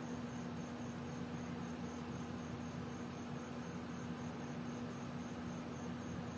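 Faint high-pitched chirping that repeats about three times a second, the call of an insect such as a cricket, over a steady low hum and hiss.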